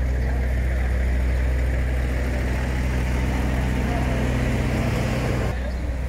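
Motor vehicle engine idling steadily, with faint voices around it; the sound drops suddenly shortly before the end.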